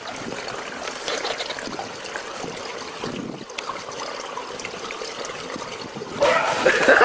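Pool water sloshing and trickling around a swimmer, with faint voices. About six seconds in, louder, rhythmic laughter breaks out.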